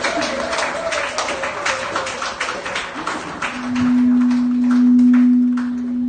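Rhythmic hand clapping by a crowd, thinning out about four seconds in. A single loud, steady low note is then held for about three seconds.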